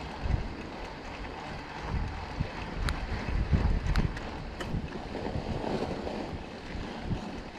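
Wind buffeting the microphone during a mountain bike ride through snow, in irregular low gusts that are strongest in the middle, with a few light clicks about three and four seconds in.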